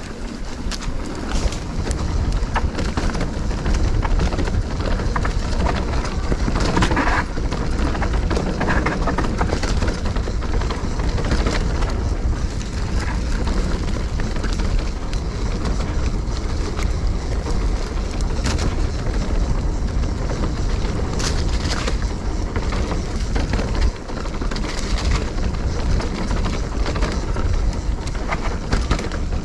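Trail-riding noise from a 2022 Specialized Stumpjumper Evo Pro mountain bike: steady wind rumble on the microphone and tyre noise on dirt, with frequent knocks and rattles as the bike goes over bumps.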